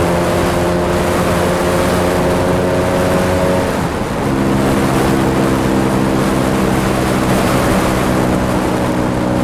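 Vespa P200E 200cc two-stroke single engine pulling up a hill, with wind rushing on the microphone. About four seconds in, the engine note breaks off briefly for a gear change and comes back at lower revs. In the higher gear it is not pulling well up the hill, which the rider takes for a loss of power in fourth.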